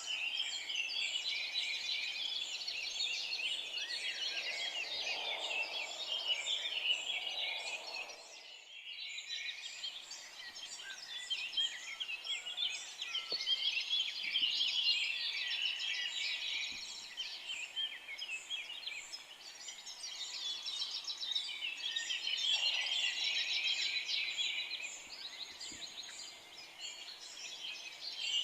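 A dense chorus of many forest songbirds singing and chirping at once, with a brief lull about eight seconds in.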